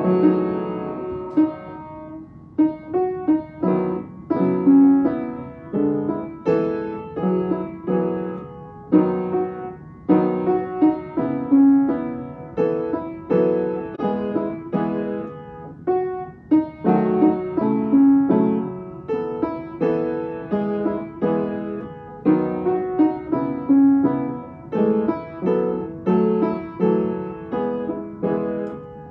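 Piano playing: a steady flow of single notes and chords at an even pace.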